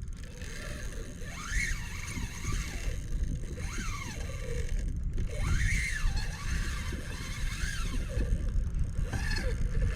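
Wind rumbling on the microphone out on open water, with several faint squeaks that rise and fall in pitch, each about half a second long.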